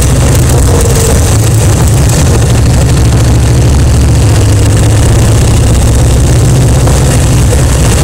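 Kawasaki Vulcan 1500 V-twin motorcycle engine running steadily as the bike rides along at a low, even pace, loud and deep.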